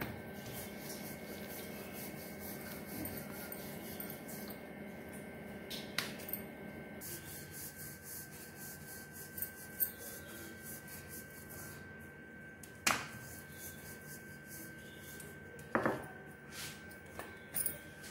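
Wooden rolling pin rolling out a stuffed paratha on a floured board: a steady soft rubbing with a few short knocks of the pin against the board.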